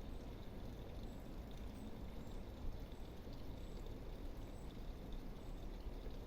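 Steady rumbling noise of a bicycle ride: tyres rolling on the path, with wind on the microphone, and a few faint high chirps.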